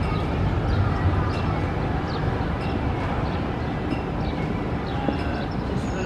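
Steady rumble of busy city street traffic, trams and cars going by, with faint short high chirps scattered throughout.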